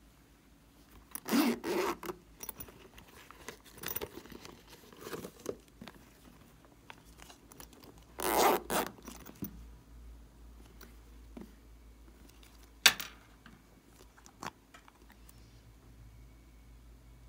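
Zipper on a pig-shaped plastic pouch being pulled, two zips about a second long each, one about a second in and one about eight seconds in, with handling scuffs between. A single sharp click comes near the thirteenth second.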